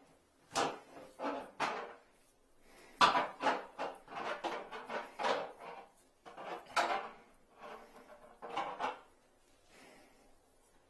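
Irregular scraping and clattering as a wire coat hanger is bent by gloved hands and worked against a porcelain toilet bowl, trying to hook a toilet-paper holder lodged in the toilet. The noises come in short bunches: a few near the start, a busy stretch from about three to five and a half seconds, then single scrapes near seven and nine seconds.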